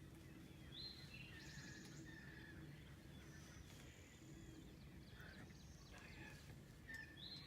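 Faint songbird song in spring woods: a short rising, buzzy phrase heard about a second in and again near the end, with other scattered chirps, over a low steady background rumble.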